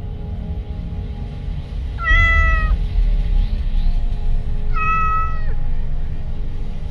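A domestic cat meowing twice, two short calls a couple of seconds apart, each dropping in pitch at its end, over steady background music.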